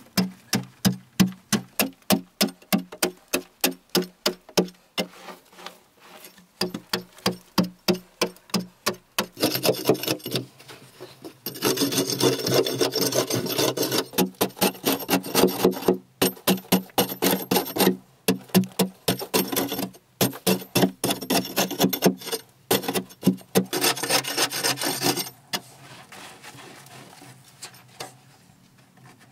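A short-handled hoe chopping into packed earth in steady strokes, about two a second. From about ten seconds in, long rhythmic scraping strokes against the earth wall take over and are the loudest part. They stop a few seconds before the end.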